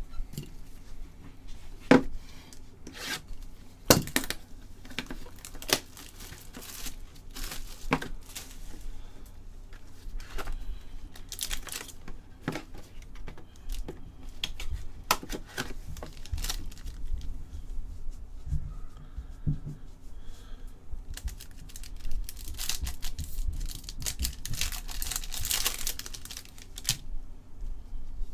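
Wrapping and a silver foil trading-card pack being torn open and crinkled by hand. A few sharp clicks come in the first half, and the foil crinkling is thickest near the end.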